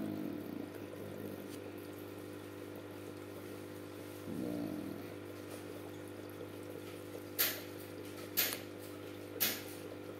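Aquarium pump humming steadily with water trickling from the tank's filter, and three sharp clicks about a second apart near the end.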